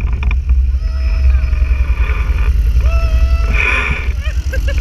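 ATV engines running: a close one with a heavy low rumble, and another quad climbing the muddy slope toward it with a steady droning engine note that swells a little before the end.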